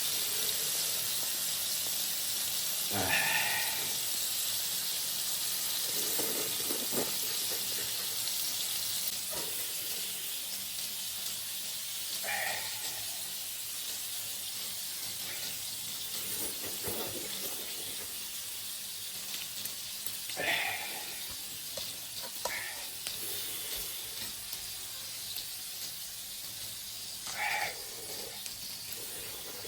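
Steady sizzling hiss of food frying in a pan, with a few short, higher-pitched sounds now and then.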